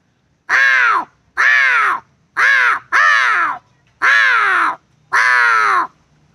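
A man imitating a crow, giving six loud cawing calls, each about half a second long and rising then falling in pitch.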